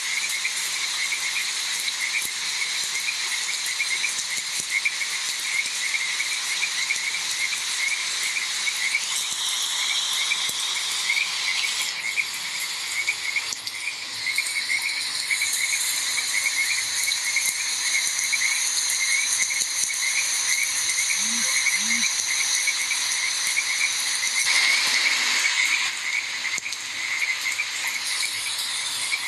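A chorus of frogs croaking in rapid, steady repeated calls, over the hiss of rain. High insect trills come and go.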